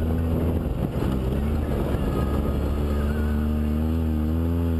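Polaris RZR side-by-side engine running under way, uneven at first as the throttle changes, then settling to a steady note that rises slightly in pitch near the end.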